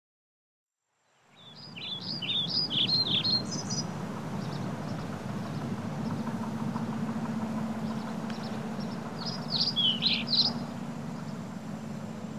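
Birds chirping in two short flurries of quick rising and falling calls over a steady low rumble of background noise, fading in about a second in.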